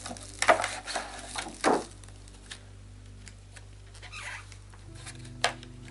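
Plastic film wrapping on a boxed makeup brush set crinkling and rustling as it is handled: three loud bursts in the first two seconds, then lighter rustles and ticks, and a sharp click near the end.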